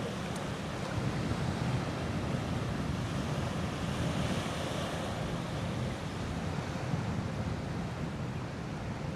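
Wind buffeting the microphone over the steady wash of river water against the shore.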